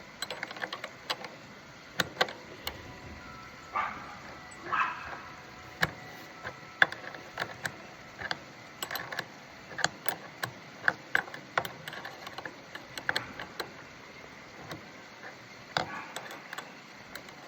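Irregular sharp metallic clicks and clinks of hand tools and small hardware being worked on a lawn mower, with a couple of short scrapes near the start and a busier run of clicks in the middle.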